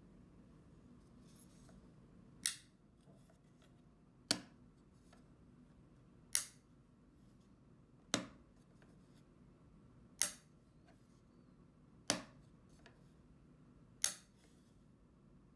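One-piece 3D-printed PLA bistable compliant mechanism snapping over between its two stable positions as it is pushed back and forth by hand: seven sharp plastic clicks, about two seconds apart.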